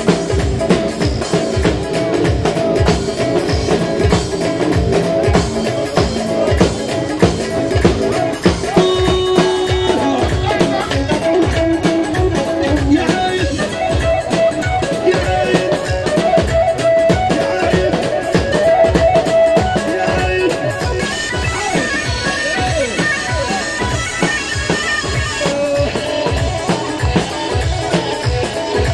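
Loud live dance music: a steady drum beat under a sustained melody line. About 21 seconds in, the melody turns busier and higher.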